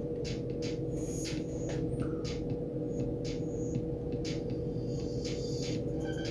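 Watercolour brush strokes on rough cotton watercolour paper: a string of short, irregular scratchy strokes over a steady electrical hum.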